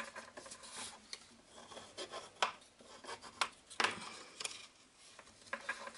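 Kraft cardstock strip being folded and creased into a U, fingers and a bone folder rubbing along the fold: soft paper rustling and rubbing with a few sharp clicks of the card.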